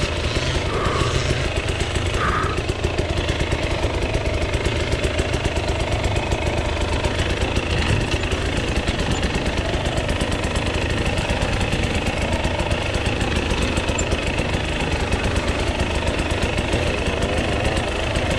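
Enduro motorcycle engine running steadily at idle, without revving.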